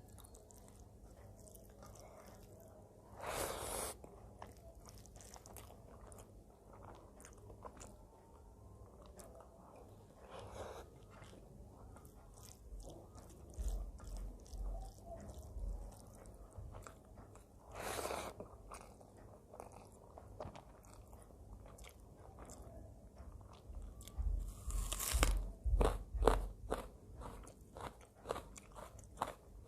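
A person chewing and eating, with wet mouth sounds and small clicks. There are a few louder bites: once early on, once in the middle, and a cluster near the end.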